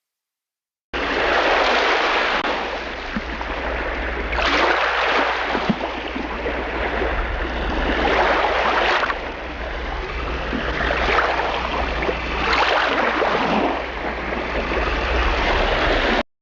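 Water sloshing and splashing around a kayak, swelling about every four seconds, with a steady low rumble beneath.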